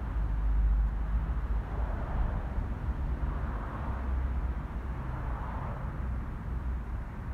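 Outdoor rumble: a deep, steady low drone with a hiss that swells and fades every second or two.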